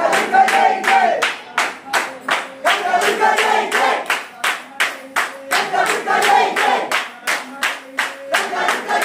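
A group of devotees chanting a bhajan of the goddess's names (sharanam chants) in short lines repeated about every three seconds, over steady hand-clapping at about three claps a second.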